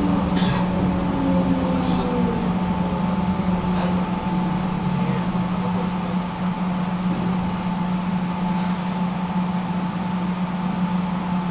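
Tram running between stops, heard from inside the car: a steady electrical hum from the traction equipment over wheel-on-rail running noise, with a motor whine falling in pitch over the first couple of seconds and a few light clicks.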